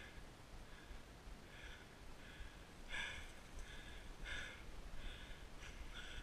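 Footsteps crunching through dry leaves and brush at a walking pace, about one step every two-thirds of a second.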